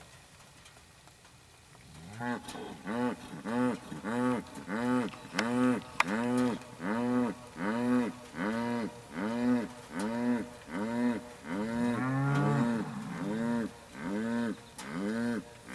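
Bull growling: a long string of short, rising-and-falling bellowing calls repeated about twice a second, starting about two seconds in, with one longer call near the end.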